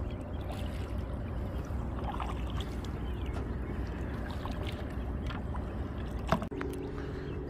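Canoe paddling: a double-bladed paddle dipping and lifting, with water dripping and trickling off the blades, over a steady low rumble. A sharp knock comes about six seconds in.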